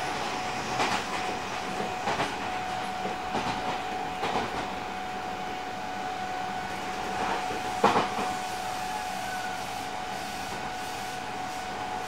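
Odakyu 8000 series electric train (refurbished, with totally enclosed traction motors) running, heard from on board: wheels clack over rail joints several times in the first half, the loudest jolt about eight seconds in, then a smoother run. A steady tone sits under the running noise throughout.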